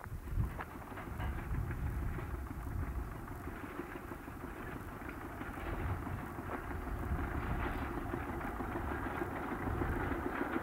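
Engine of a small homemade farm tractor running steadily as it tows a hay rake, puffing black exhaust smoke, a continuous low rumble that grows a little louder as the tractor approaches.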